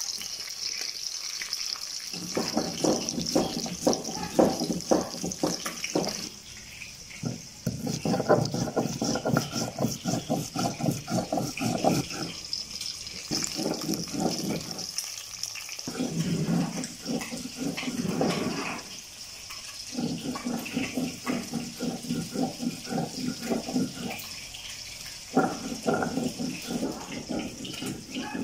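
Rohu fish steaks frying in hot mustard oil in a karahi: a steady sizzle with dense, rapid crackling and spitting, coming in stretches broken by short lulls.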